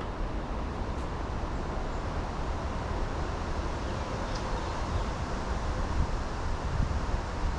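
Wind rumbling on the microphone: a steady low rumble with a faint hiss, gusting a little.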